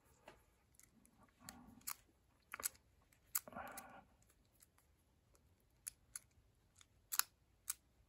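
Faint, irregular small clicks and ticks from a Brinks combination padlock: its number wheels being turned by thumb while a thin feeler-gauge decoder shim probes behind the second wheel, feeling for the gate to open it.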